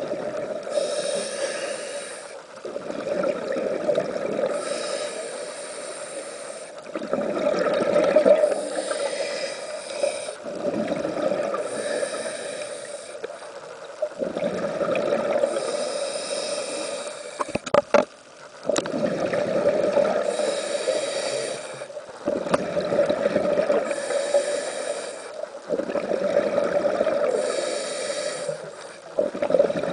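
Scuba diver breathing through a regulator underwater: the hiss of each inhale alternates with the bubbling rush of the exhale, about one breath every four seconds. A few sharp clicks come a little past halfway.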